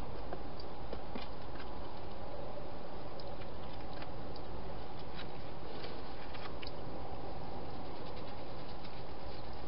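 A steady hiss of microphone noise, with faint, scattered clicks and scrabbling from a wild hedgehog moving about in and around a plastic feeding box.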